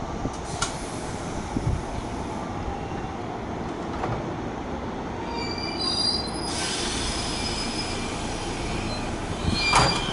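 A JR West electric train running along the rails with a steady rumble, its steel wheels squealing in high tones from about halfway through, with a sharp, loud screech near the end.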